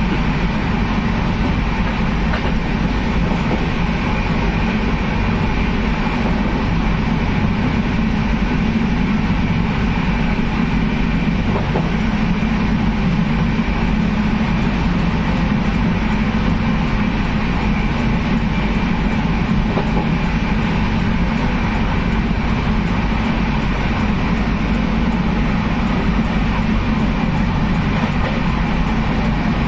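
Steady, loud running noise of a moving passenger train heard from inside a coach: the rumble of wheels on rails and the carriage.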